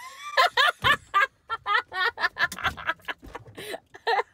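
A woman laughing in a rapid run of short, high-pitched bursts.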